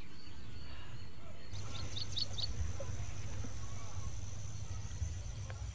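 Outdoor background noise with a steady low rumble, and a bird giving a quick run of four or five short high chirps about a second and a half in.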